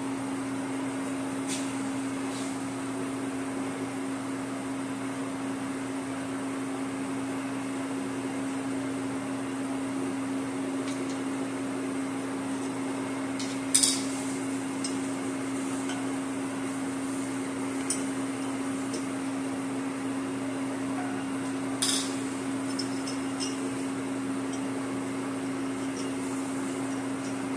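Steady machine hum in a machine shop, with a few sharp metal clinks as steel tooling is handled at a horizontal boring mill's boring bar. The loudest clink comes about halfway through.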